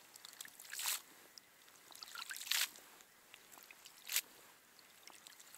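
Wet water weeds being hauled by hand out of a hole in the ice and dropped onto the ice: three short wet swishes and splashes, with light dripping and small ticks of water between.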